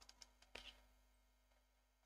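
Near silence with a cluster of faint clicks in the first second from a computer mouse and keyboard, the loudest a double click just after half a second in.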